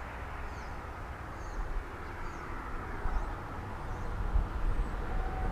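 Road traffic on the bridge overhead: a steady rumble and tyre hiss that swells and eases as vehicles pass.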